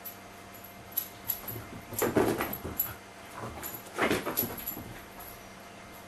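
Pet dog scampering around: two short flurries of scuffling and clicking, about two seconds apart.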